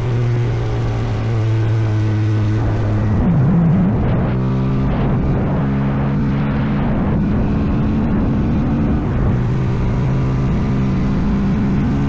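CFMoto Papio's single-cylinder motorcycle engine running at a steady cruise. The revs dip briefly about three seconds in, climb again about a second later, then settle.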